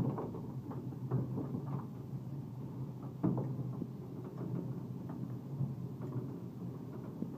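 Funicular cliff-railway car running up its incline: a steady low rumble with rattles and a few sharp knocks, the clearest about a second in and just after three seconds.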